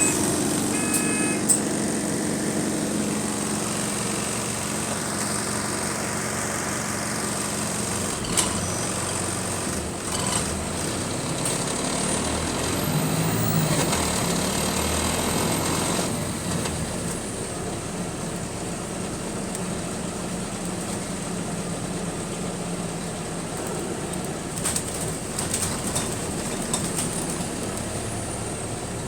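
Bus engine and drivetrain running as heard from on board, a steady hum that swells for a few seconds in the middle. Sharp knocks and rattles come through it, the loudest about a second and a half in and another around eight seconds.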